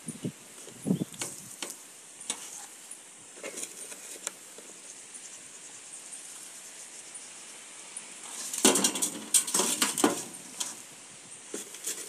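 Salt sprinkled by hand onto a whole fish in a stainless steel bowl: scattered light ticks and patters of grains on the fish and the metal, with a denser spell of pattering and rustle about nine seconds in.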